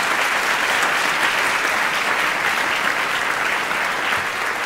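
A large theatre audience applauding steadily: dense, even clapping from a full house.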